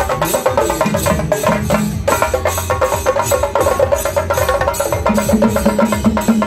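A troupe of drummers playing fast, loud traditional procession drumming with sticks, many sharp strikes each second in a dense, driving rhythm.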